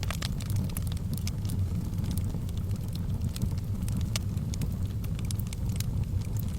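Fire burning in a fireplace: a steady low rumble of the flames with sharp, scattered crackles and pops, several every second.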